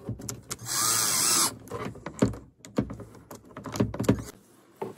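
Cordless drill/driver with a socket spinning a nut down on a U-bolt wire rope clip, in one burst of about a second near the start, its pitch rising and falling. After it come a few short clicks and knocks of metal being handled.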